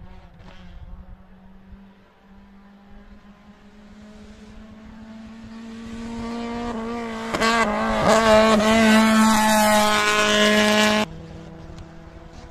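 Race car engine approaching at full throttle, growing louder and higher in pitch, with the note wavering as it climbs. The engine sound stops abruptly near the end.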